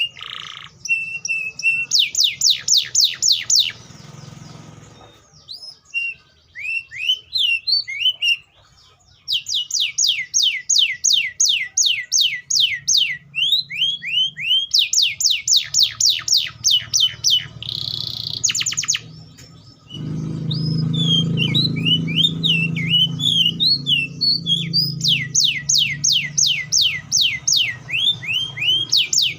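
Canary (Serinus canaria) singing: fast trills of repeated down-slurred high notes, about six a second, alternating with varied twittering phrases. A low rumble runs under parts of the song.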